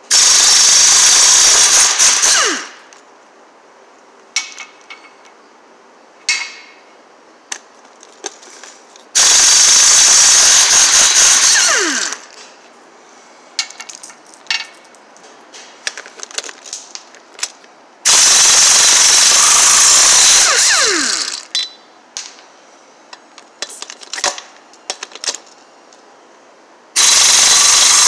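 Husky air impact wrench hammering on a wheel's lug nuts in four bursts of about two to three seconds each, its pitch dropping as each burst ends. Short metal clinks and clicks fill the gaps between bursts.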